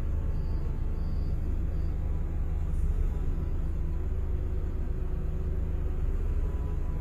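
Car engine idling, heard from inside the cabin as a steady low rumble. A few faint, short, high beeps sound in the first two seconds.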